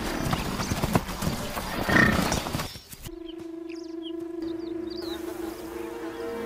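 Loud, rough animal noise with crackling strokes for about three seconds, then an abrupt change to soft sustained music tones with small birds chirping now and then.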